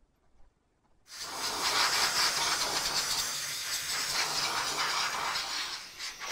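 Heat gun blowing: a steady hiss that starts abruptly about a second in, used to soften clear acrylic for bending.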